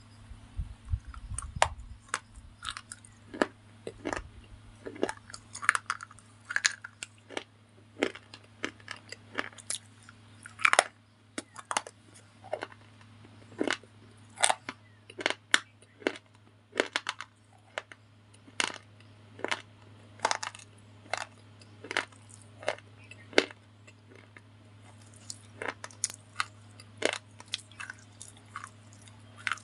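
A white slate bar being bitten and crunched between the teeth, a long run of sharp, crisp snaps about one or two a second, over a faint steady low hum.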